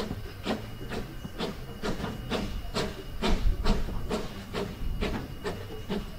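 Two-foot-gauge steam locomotive Monson No. 3, a Forney tank engine, chuffing steadily at a little over two exhaust beats a second as it pulls the train, heard at close range from just behind its coal bunker, over a low rumble of the running train.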